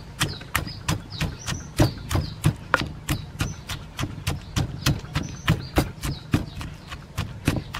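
Wooden pestle pounding lime wedges and red chilies in a stone mortar: a steady run of knocks, about three to four a second.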